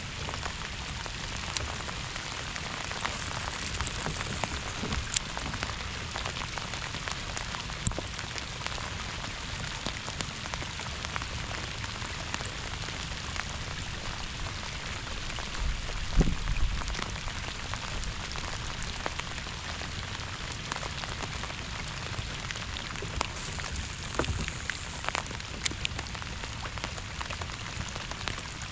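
Steady rain falling, with scattered sharper drop hits. About sixteen seconds in there is a dull low thump, with a smaller one later.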